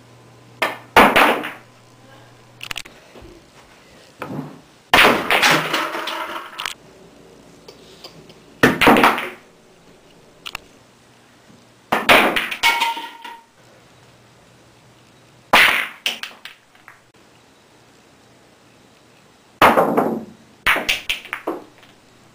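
Pool balls being struck with a cue and clacking together, shot after shot: about eight quick runs of sharp clacks, each tailing off in a short rattle, with the longest clatter about five seconds in.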